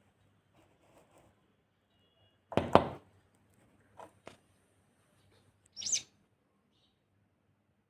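A sparrow chirping a few times, one brief high call near the end the clearest, among a loud short thump or rustle and two light clicks.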